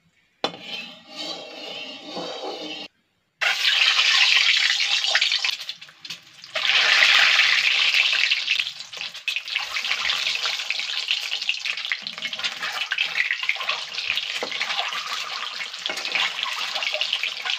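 Peeled boiled eggs frying in hot oil in a steel kadhai: a loud sizzle breaks out about three seconds in and again a few seconds later as the eggs go into the oil, then carries on as a steady sizzle.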